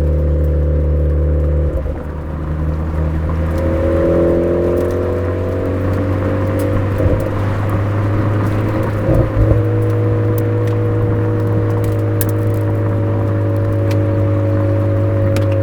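Suzuki Swift Sport ZC33S's 1.4-litre turbocharged four-cylinder running through a Fujitsubo aftermarket exhaust on a downhill drive, a steady exhaust note. The pitch steps up about two seconds in, then drifts slowly, with two brief low thumps near the middle.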